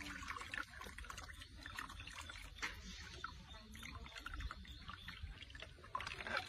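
Faint bath water splashing and dripping: a run of small, irregular splashes and drips.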